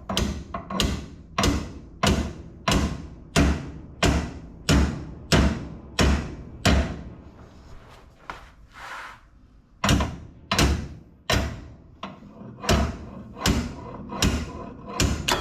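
Hammer blows on Vise-Grip locking pliers clamped to a 1969 Plymouth Fury III's torsion bar, driving the bar out of the lower control arm. The blows come about one and a half a second, each ringing briefly, with a pause of about three seconds midway before they resume.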